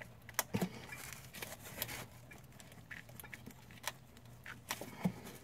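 Scattered faint clicks and small knocks of a gloved hand working the front-left ABS wheel speed sensor cable and its plastic retaining clips loose, with the clearest clicks about half a second in and near the end.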